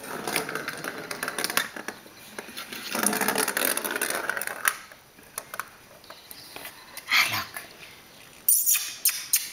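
Rustling noise and a small plastic toy ball rolling across a tiled floor, with a few sharp knocks near the end.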